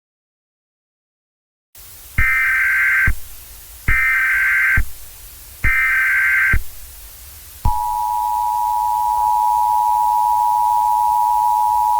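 Emergency Alert System SAME header: after a couple of seconds of silence, three short bursts of warbling data tones, each about a second long. About two seconds later the steady two-tone EAS attention signal starts and holds, announcing a tornado warning.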